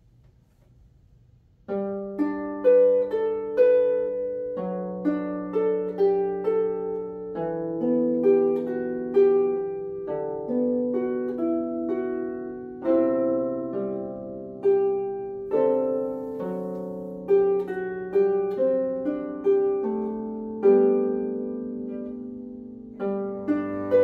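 Harp playing a plucked melody with chords, starting about two seconds in. Near the end a cello joins with a low bowed note.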